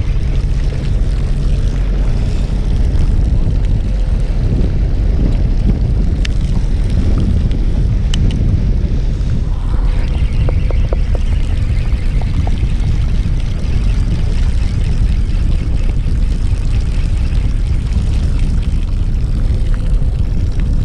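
Fishing boat's engine running, a steady low drone, with a few faint clicks over it.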